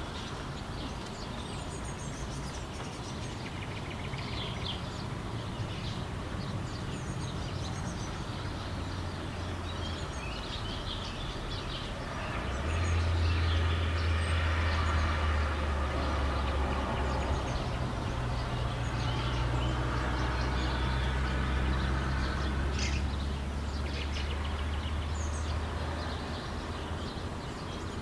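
Outdoor ambience with small birds chirping on and off; about twelve seconds in, the low rumble of a passing vehicle swells up, holds for about ten seconds and fades back.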